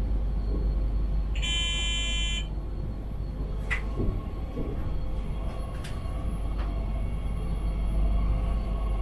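Cab of a Talent 3 electric multiple unit rolling slowly, a steady low rumble, with a short electronic beep from the cab about a second and a half in, lasting about a second. A few sharp clicks follow as it runs over the points.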